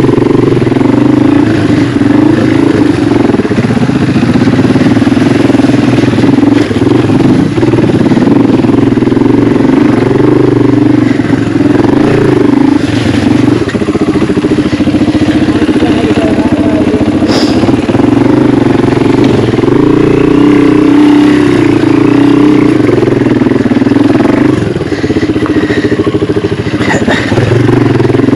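Yamaha TW200's single-cylinder four-stroke engine running while ridden over rocks, its pitch rising and falling with the throttle. A few short knocks come about two-thirds of the way in and near the end.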